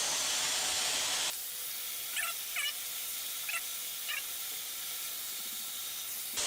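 Vacuum cleaner running with its nozzle sucking dust out of a PlayStation 4 Slim's fan and casing: a steady rushing hiss that changes tone about a second in. A few short squeaks come between two and four seconds in.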